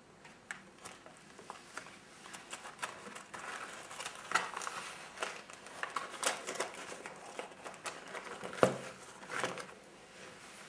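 Stiff, crumpled paper pages of a handmade drawing book crinkling and crackling in irregular snaps as hands turn them and close the book, with one sharper crack near the end.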